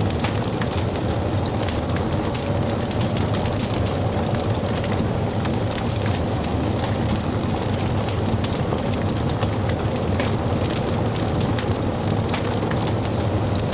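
Wood fire burning: a steady low rumble of flame with frequent small crackles and pops from the burning wood.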